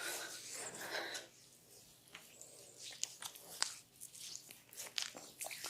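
Hands massaging an oiled head, a soft rubbing on skin and hair followed by a scattered run of small, sharp wet clicks and snaps.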